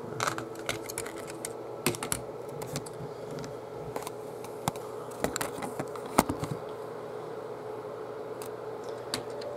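Irregular clicks and taps of plastic LEGO pieces as a brick-built jet is handled and set down on a baseplate, most of them in the first two-thirds, over a faint steady hum.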